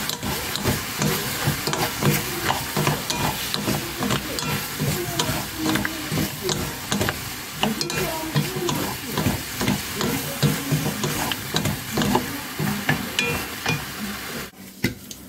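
King oyster mushrooms and vegetables stir-frying in a pan, tossed with two wooden spatulas: steady sizzling with rapid knocks and scrapes of the spatulas against the pan, dying down about half a second before the end.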